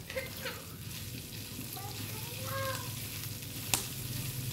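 Pieces of pork belly sizzling in a frying pan as they are stirred, with one sharp click about three-quarters of the way through.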